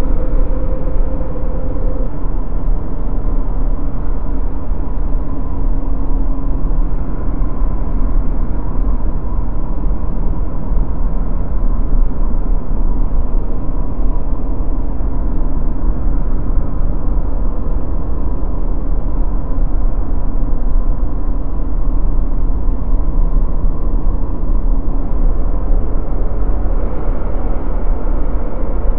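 Steady, loud low rumble with a faint held tone that stops about two seconds in.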